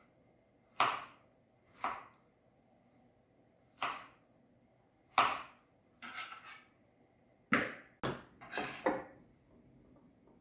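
Kitchen knife striking a cutting board while chopping tomatoes: separate cuts a second or two apart, then a quicker run of several cuts near the end.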